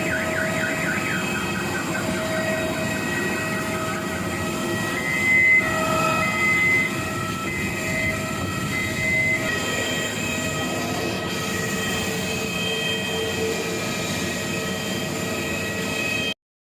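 Steady rumble of a moving vehicle heard from inside, with several steady whining tones over it. It cuts out suddenly near the end.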